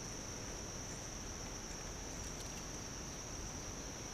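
Steady high-pitched insect chorus, one unbroken drone.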